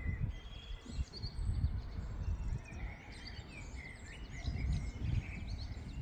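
Several wild songbirds singing at once: short high warbles, chirps and trills overlapping. A low, uneven rumble runs underneath.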